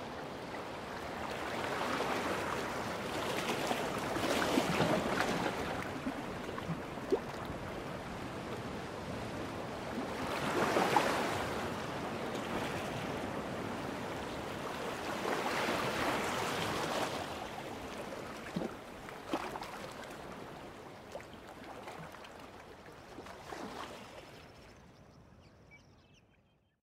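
Ocean surf: waves breaking and washing in, the rush swelling and ebbing about every five or six seconds, with a few sharp splashes; it fades out near the end.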